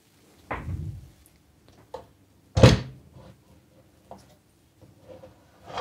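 Metal housing of a battery charger being handled as it is taken apart: a soft knock about half a second in, a sharp clank near the middle, and a few light clicks.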